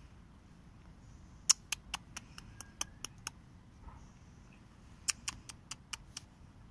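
Two quick runs of sharp ticking clicks, about four to five a second: nine clicks from about a second and a half in, the first the loudest, then six more near the end.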